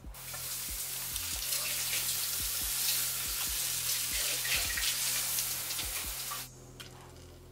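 Butter sizzling as it melts in a hot nonstick frying pan while being pushed around with a plastic utensil; the steady sizzle cuts off abruptly about six and a half seconds in.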